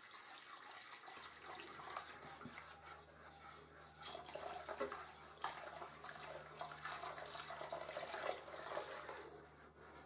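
Thin curry sauce being stirred in a saucepan with a slotted spatula as stock is added: soft sloshing of liquid with irregular scrapes and clicks of the utensil against the pan. A low steady hum starts about a second in.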